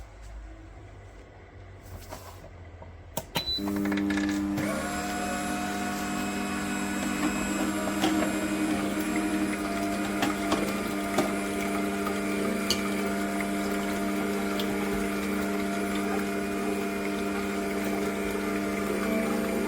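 A few clicks, then a Fretta cold-press slow juicer's motor switches on about three and a half seconds in and runs with a steady low hum. Small ticks and cracks sound now and then over the hum.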